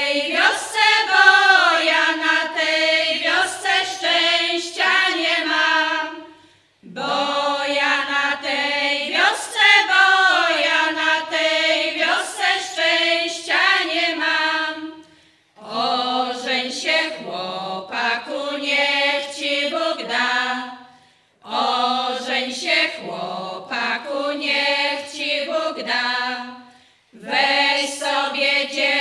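Women's folk choir singing a Polish folk song a cappella, in sung phrases broken by short pauses every six to nine seconds.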